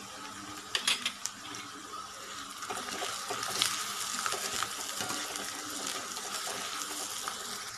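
Chopped onions sizzling in hot oil in a steel kadai, with a steel ladle clinking and scraping against the pan as the turmeric and salt are stirred in. A few sharp clicks come about a second in, and the sizzle grows louder from about two and a half seconds in as the stirring goes on.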